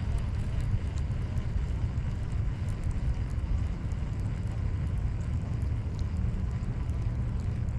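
Wind buffeting the microphone outdoors: a steady low rumble with a faint hiss above it.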